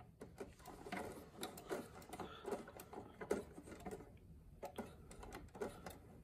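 Faint, irregular clicking and ticking from the clock-setting knob and gear train of a 1964 General Electric C-409E clock radio as its hands are turned by hand.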